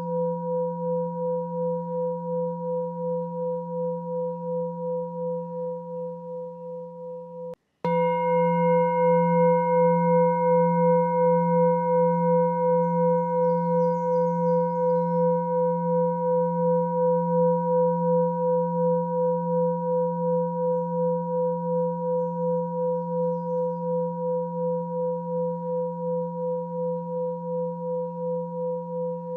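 Sustained meditation drone of ringing tones that wobble about twice a second and slowly fade. About seven and a half seconds in it cuts out for a moment and starts again louder and brighter, with higher overtones that die away over the following seconds.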